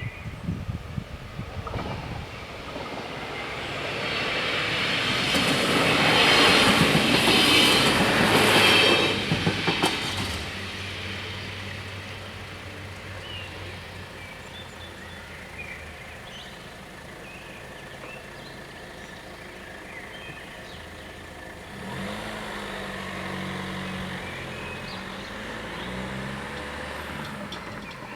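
Danish LINT 41 diesel railcar passing over a level crossing. The sound builds to its loudest about six to nine seconds in, then drops away by about ten seconds. A steady low hum comes in later.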